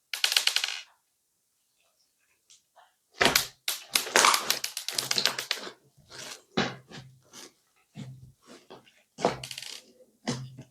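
Crunchy slime squeezed and kneaded by hand, giving bursts of dense crackling and popping, some with a soft thud underneath.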